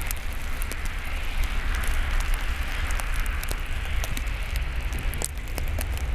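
Outdoor ambience in a snowstorm: a steady hiss with a heavy low rumble of wind on the microphone, and scattered faint ticks.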